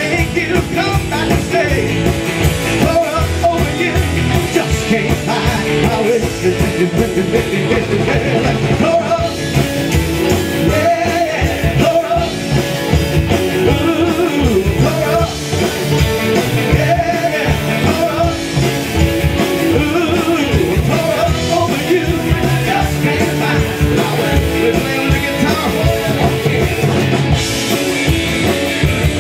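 A rockabilly band playing live, with electric guitars and an upright double bass, and a man singing lead.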